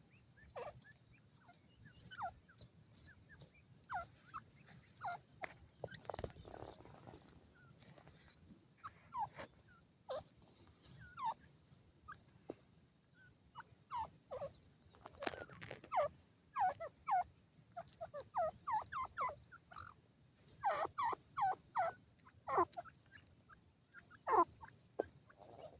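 Francolin (teetar) hen and chicks calling: many short, falling chirps, scattered at first and then in quicker runs through the second half.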